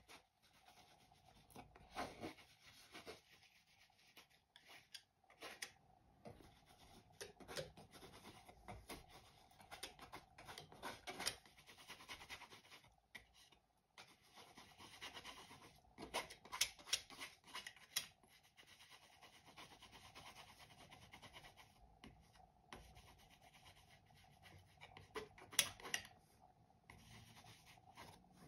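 Palette knife scraping and spreading oil paint on canvas: faint, irregular rubbing strokes, with a few sharper clicks of the knife now and then.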